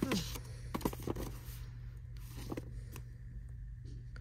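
Paperback books handled on a store shelf: a few short taps and scrapes as books are set down and slid, clustered near the start and again a little past halfway, over a steady low hum.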